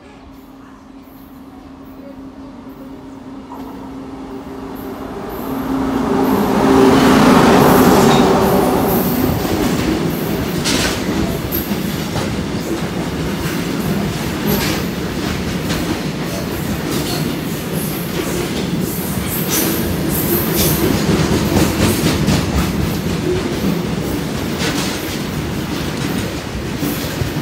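A WAG-9H electric locomotive hauling a BCNAM covered-wagon freight train approaches and runs through at speed. Its steady hum grows louder and peaks about seven seconds in as it passes. After that comes the steady rumble of the wagons rolling past, with repeated clicks of wheels crossing rail joints.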